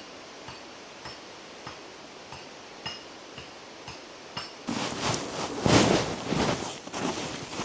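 Faint light clicks about every half second, then from a little past halfway louder, irregular crunching footsteps in snow.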